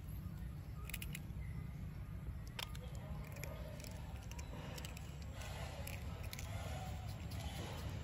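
Scattered sharp crunches and crackles of a long-tailed macaque biting and handling a block of dry, uncooked instant noodles, over a steady low rumble.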